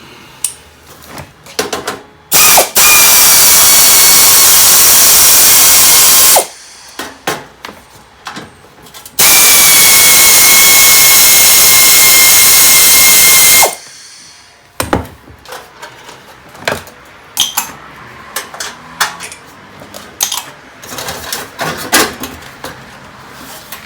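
Power drill with a socket bit spinning out bolts in two long, steady runs of about four seconds each with a high motor whine, with clinks of metal parts and tools handled between and after.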